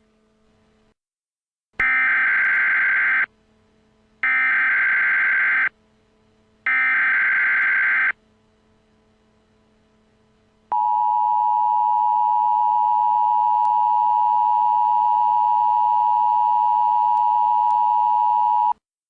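Emergency Alert System header: three loud bursts of SAME digital data tones, each about a second and a half long with short pauses between. Then the steady two-tone EAS attention signal holds for about eight seconds and cuts off sharply. Together they announce an incoming emergency alert message.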